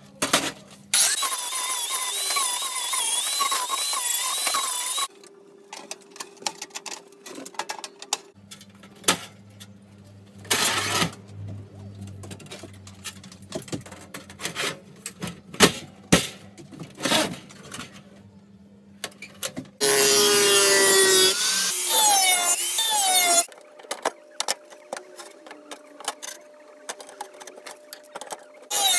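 Angle grinder with a flap disc grinding steel in two loud bursts, its whine wavering under load, the first about a second in lasting some four seconds and the second near two-thirds through. Between them, steel parts clank and knock on the bench.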